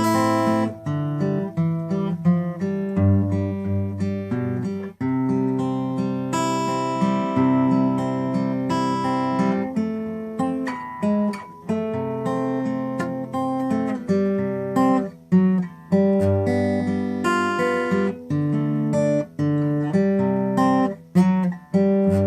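Acoustic guitar playing a tune instrumentally, chords strummed and plucked with the bass notes changing every second or so.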